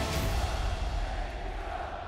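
Promo music with a heavy, deep bass and crowd noise mixed in, easing off slightly near the end.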